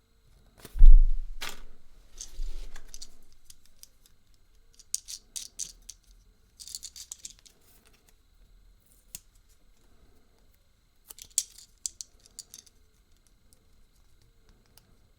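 Small plastic toy parts being handled: a knock about a second in, then scraping and three bursts of quick clicking and rattling.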